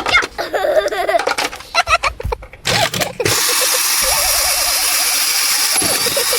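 Short high-pitched voice-like sounds and clicks, then about three seconds in a steady whirring buzz like a small electric motor starts and keeps going.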